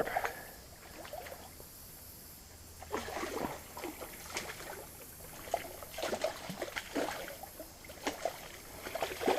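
Water splashing and sloshing in short, irregular bursts over a low steady background, starting about three seconds in.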